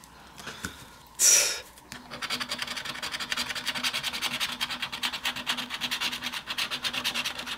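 Scratch-off lottery ticket being scratched: quick, even back-and-forth scraping strokes that start about two seconds in. Just before, about a second in, there is a short breathy puff.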